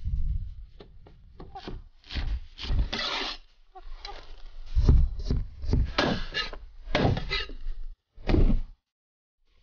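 Cleaver chopping onions and garlic on a thick wooden chopping block: a series of irregular knocks with a dull thud under each, some in quick runs, with the scrape of the blade gathering up the chopped pieces.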